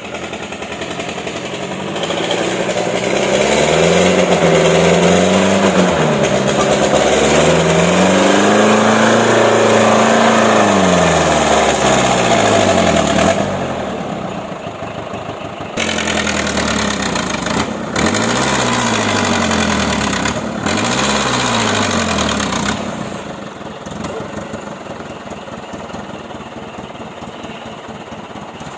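Old truck's diesel engine revving hard and easing off again and again, its pitch rising and falling several times, as it labours to push through deep mud; it settles to a lower, steadier note near the end.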